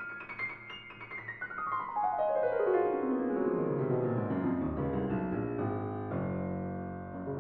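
Grand piano played solo: a fast run cascades down from the treble into the bass, growing louder about two seconds in, then gives way to full sustained chords in the low and middle register.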